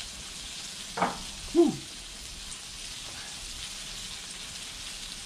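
Flap steak sizzling steadily on a hot Blackstone flat-top griddle. About a second in comes a short knock, then a brief pitched sound that is the loudest moment.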